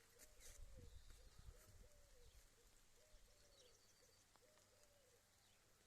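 A dove cooing faintly, a soft repeated two-part coo about every one to one and a half seconds that stops about five seconds in. A low rumble runs under the first two seconds.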